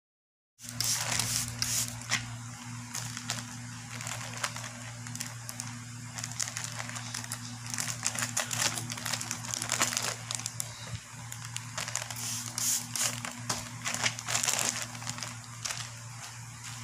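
Thin plastic courier pouch and bubble wrap crinkling and rustling as a parcel is handled and opened by hand, starting about half a second in. A steady low hum runs underneath.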